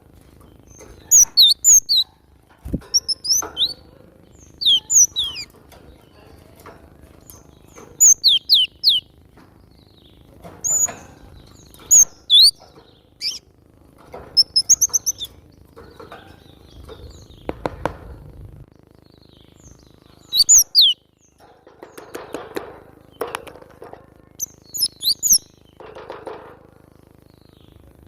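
Cinereous tit (glatik batu) singing energetically: short bursts of sharp, high chirps made of quick falling notes, repeated every second or two.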